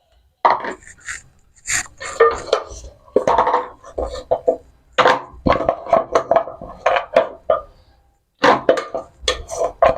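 Pots, bowls and utensils clattering: irregular knocks and clinks with short ringing as boiled soup bones are moved into a separate bowl.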